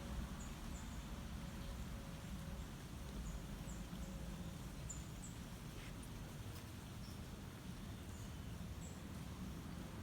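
Faint, short, high chirps of small birds here and there over a low steady rumble of outdoor background noise.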